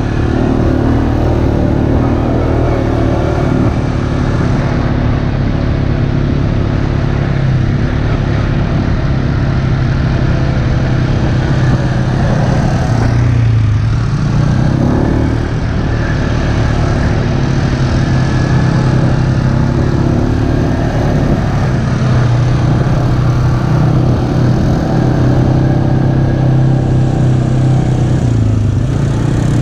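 ATV engine running steadily at trail speed, its pitch shifting a little with the throttle and easing off briefly about halfway through.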